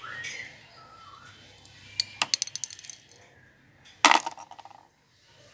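Small hard plastic toys dropped into a plastic basket, clattering and bouncing in a quick run of clicks about two seconds in, then a louder clatter about four seconds in.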